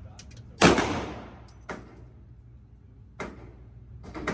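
Handgun fired on an indoor range: one loud shot about half a second in, ringing off the walls as it dies away. Two fainter sharp cracks follow, about one and two and a half seconds later.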